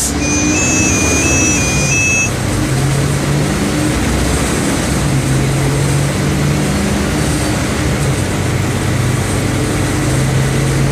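Mercedes-Benz OM 457 LA inline six-cylinder turbocharged diesel engine of an O-500MA articulated bus running, a steady low hum that shifts in pitch. A short stepping electronic beep pattern sounds over it in the first two seconds.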